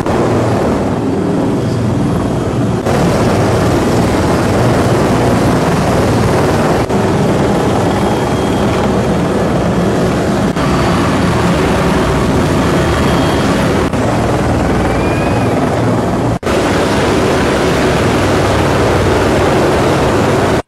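Police rescue helicopter's rotor and engine running loud and steady while it hovers over a rooftop, heard from inside the cabin at the open door. The sound dips for an instant a few times.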